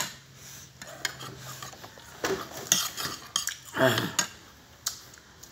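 Close-up eating of crisp, juicy tambis (water apple): a run of wet crunches and mouth clicks as the fruit is chewed. A short falling voice-like call comes about four seconds in.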